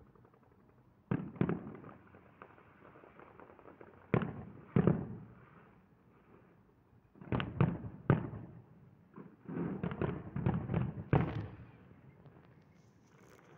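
Aerial firework shells bursting: single and paired booms, each with an echoing tail, then a quick volley of bangs near the end.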